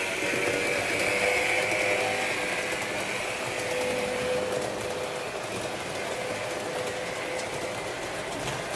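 Model railway train running on the layout: a steady whirring of the locomotive's electric motor and wheels on the track, a little louder in the first couple of seconds.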